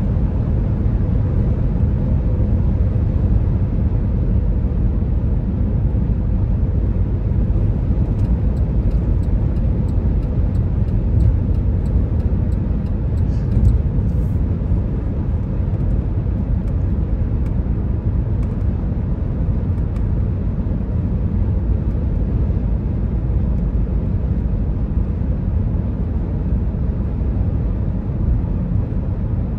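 Car cruising at highway speed, heard from inside the cabin: a steady low rumble of engine, tyre and road noise.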